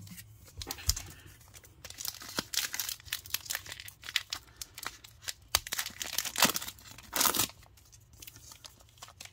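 A Donruss baseball card pack's wrapper being torn open and crinkled by hand, in a run of short rips and crackles with a few louder tears.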